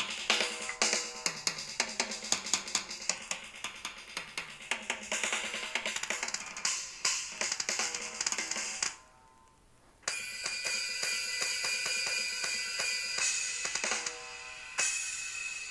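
Recorded drums playing a fast, busy beat with bright high strikes. They stop about nine seconds in, and after a short pause a second passage with sustained ringing tones follows.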